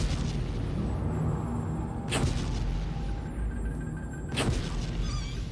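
Suspense film score: a low, sustained drone broken by sudden heavy booming hits about every two seconds.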